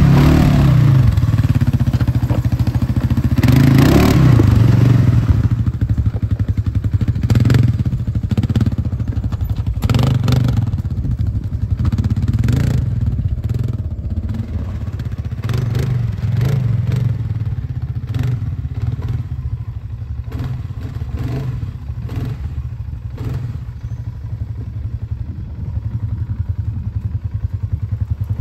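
Polaris Sportsman 570 ATV's single-cylinder four-stroke engine revving up twice in the first few seconds, then running at lower revs as the quad crawls over rough ground. Scattered knocks and clatter run through it.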